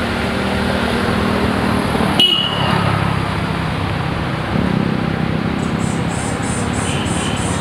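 Steady road traffic noise, with a sharp click a little over two seconds in and a fast, high ticking starting near the end.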